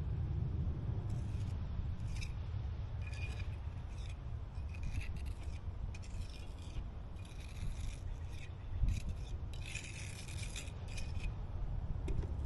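Repeated rubbing or scraping strokes in irregular bursts, the longest and loudest about ten seconds in, over a steady low rumble.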